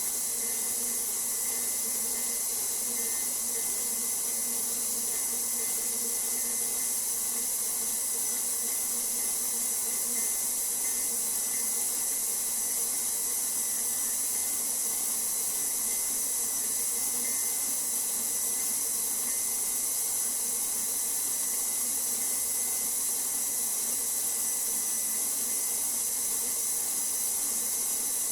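Electric mixer running steadily at one speed, kneading whole wheat bread dough to work in the oil and develop the gluten: a constant motor hum with a strong hiss.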